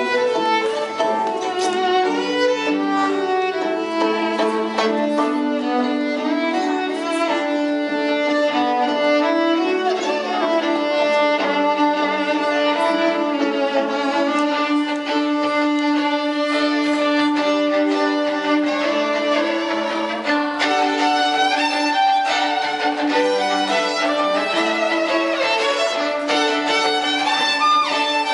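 Two violins playing a duet, long held low notes sounding under a moving tune.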